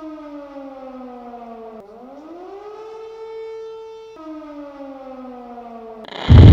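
Motor-driven warning siren signalling an imminent quarry blast, winding down, back up, then down again in long slow glides. A granite quarry blast goes off with a very loud, sudden noise right at the end.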